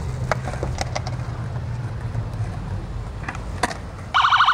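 Low steady rumble of a vehicle engine with a few faint clicks. About four seconds in, a police car's electronic siren starts up loudly with a rapid pulsing wail.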